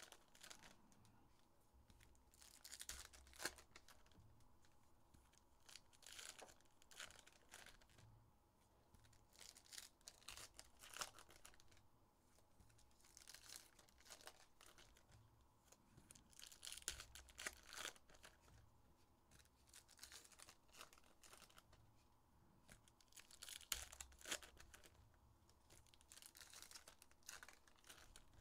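Faint tearing and crinkling of trading-card pack wrappers being ripped open by hand, in short bursts every few seconds.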